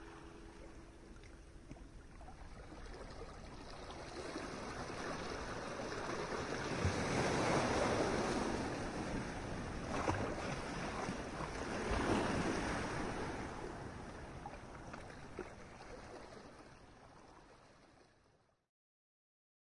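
Ocean surf: waves washing in and breaking. The sound swells to a few surges in the middle, then fades away and stops abruptly shortly before the end.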